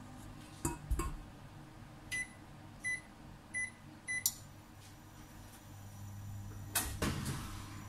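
Touch controls of a glass-top electric cooktop beeping four times in a row as the burner is switched on, followed by a click. A low steady hum then comes up from the hob as it starts heating. A few knocks sound near the start, and a louder clatter near the end.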